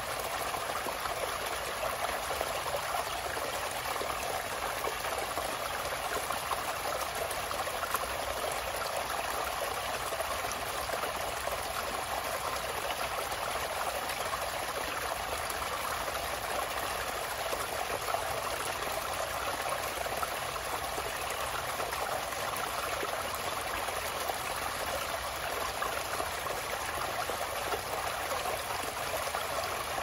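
Water of a tiny spring trickling and splashing down a narrow rock channel, a steady, unbroken rush of small running water.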